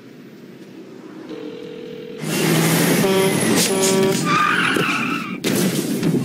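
Car skidding with squealing tyres and its engine running hard as a taxi cab drives off, loud from about two seconds in, after a quieter steady hum.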